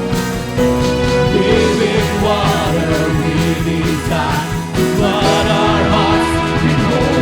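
Live worship band music: sustained chords over a steady bass, with a wavering melodic vocal line over the top from about a second in.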